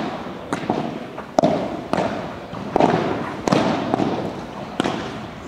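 A padel rally: the ball is struck by solid padel rackets and bounces off the court and glass walls, giving about six sharp hits a second or less apart, each with a short echo from the large hall.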